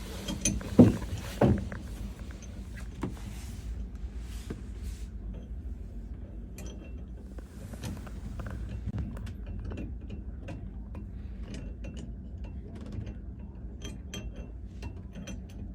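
Hand tools knocking and clicking against the metal of a shower valve: a few sharp knocks in the first second and a half, then light irregular clicks and ticks over a low steady hum.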